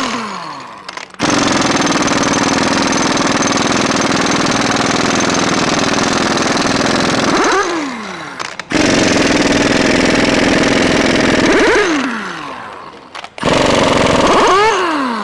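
Pneumatic air impact wrench hammering on pump tie rod nuts in three bursts, loosening them; each time the trigger is released, the motor winds down with a falling whine.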